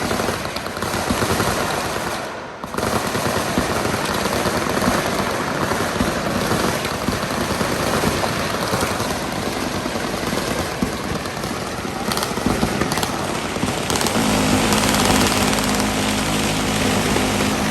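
Sustained, overlapping automatic gunfire from many machine guns on a firing line, with a brief lull about two and a half seconds in. A steady low drone joins about fourteen seconds in.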